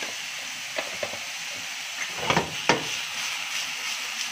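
Chicken cubes sizzling steadily in oil in a nonstick frying pan, stirred and tossed with a silicone spatula. Several short knocks and scrapes from the spatula and pan come in the second half, the loudest about two and a half seconds in.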